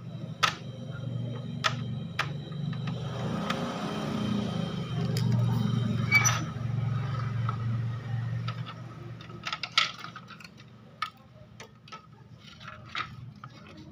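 Sharp clicks, light knocks and scrapes as wires and a CRT television's chassis board are handled. Underneath runs a steady low hum that grows louder for a few seconds in the middle.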